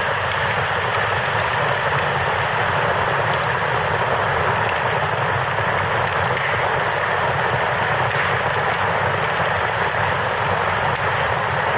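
Steady rushing of a river, with faint crackling from a campfire.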